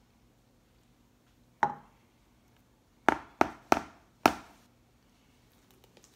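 A metal spoon knocking sharply against a rim, four quick knocks in a little over a second, each with a short ring, after a single knock about a second and a half in.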